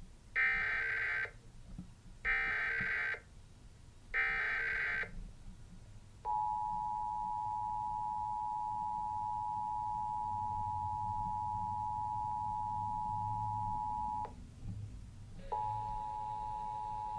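Emergency Alert System test on TV audio: three one-second bursts of SAME header data, then the steady two-tone EAS attention signal (853 and 960 Hz) for about eight seconds. It cuts off, and the two tones start again about a second later.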